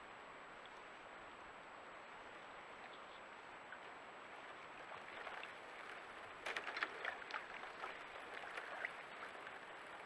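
Steady hiss of a trail camera's microphone with a thin high whine. From about six and a half seconds in comes a run of short clicks and crackles as North American river otters move in the shallow water at the bank's edge.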